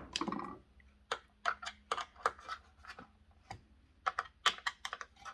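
Track saw guide rails and rail connectors being handled and fitted: a brief sliding scrape, then a string of sharp, light clicks and taps.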